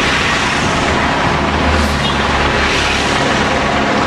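Motor vehicles of the race convoy passing along the street: a loud, steady rush of noise with a low engine hum that swells about halfway through.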